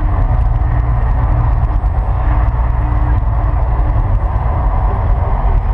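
Mirage volcano show erupting: a deep, steady rumbling roar as its flame effects flare, with a faint held musical tone now and then underneath.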